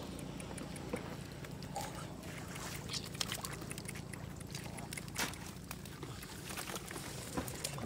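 Shallow muddy water splashing and sloshing as hands grab catfish among the grass, with a few sharper splashes over a steady low background.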